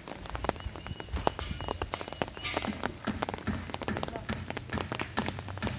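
Light rain drizzling onto an umbrella held overhead: a dense, irregular scatter of sharp drop taps on the fabric close by.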